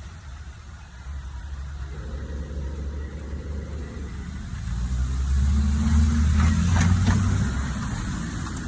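A vehicle engine running and growing louder about five seconds in, with a few sharp knocks at its loudest, then easing off near the end.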